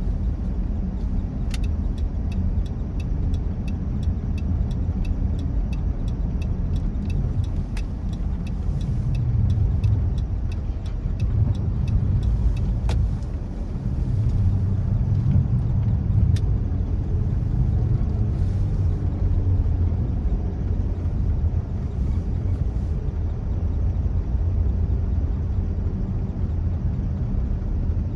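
Low, steady rumble of a car driving on a road. From about two seconds in, a regular ticking about twice a second runs for roughly ten seconds.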